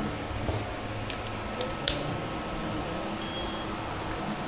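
A few sharp metallic clicks and clinks of hand tools, then one electronic beep about half a second long near the end, over a steady workshop background hum.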